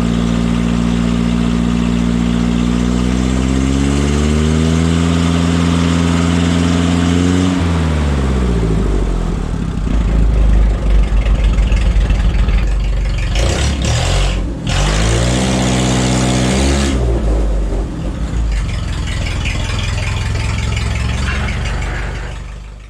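Propane forklift engine running, revved up and back down twice, with a rougher, louder stretch between the revs; it is being run to warm up and circulate head-gasket sealer through the cooling system. The sound fades out at the end.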